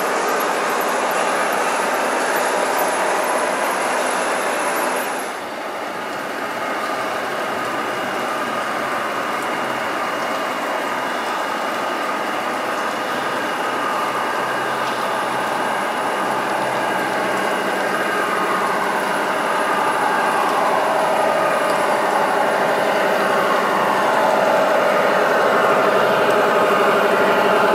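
Large-scale (1:22.5) model trains running on an exhibition layout, with a steady mechanical noise. After a cut about five seconds in, a red model passenger train approaches and the sound grows louder, with a rising and falling whine in the last ten seconds.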